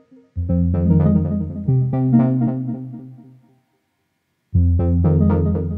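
Instrumental background music: sustained chords over a low bass. It drops out about three and a half seconds in and starts again a second later.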